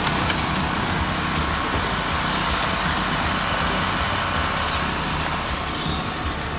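Several electric 1/10-scale RC touring cars racing, their motors whining in high pitches that rise and fall again and again as they accelerate and brake.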